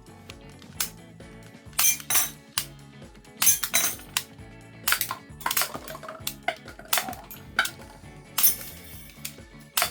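A Tiger-made Luger toy pistol being handled and worked: a string of irregular sharp plastic-and-metal clicks and clacks, some with a short metallic ring. Background music plays throughout.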